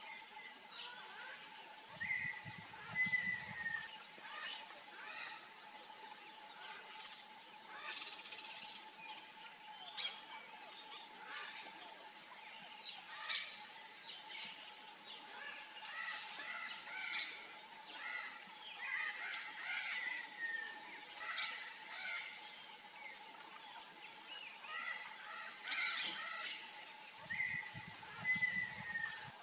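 Wetland ambience: a steady insect chorus, a high pulsing drone over a lower steady hum, with scattered short chirps and calls of small birds. A single sharp click about midway, and two brief low sounds near the start and near the end.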